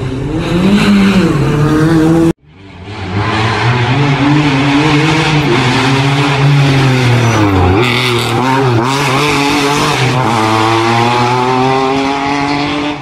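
Rally car engines revving hard, the pitch climbing and dropping repeatedly as the cars shift through the gears. The sound cuts off abruptly about two seconds in and picks up again with another car, which near the end accelerates in a long rising run.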